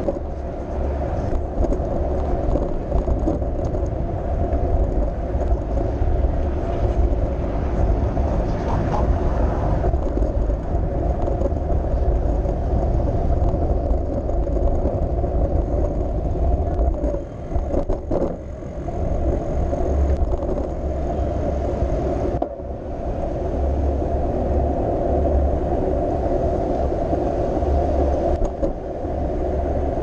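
Steady wind rumble and road noise on a bicycle-mounted GoPro during a ride along city streets, with light car traffic. The noise dips briefly twice in the second half.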